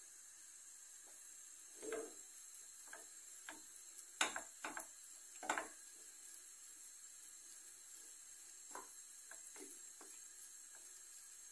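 Wooden spoon breaking up raw ground beef in a granite-coated frying pan: scattered soft knocks and scrapes of the spoon against the pan, starting about two seconds in and loudest around the middle.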